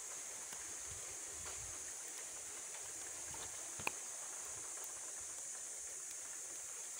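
Steady high-pitched buzz of forest insects, with a single sharp click about four seconds in.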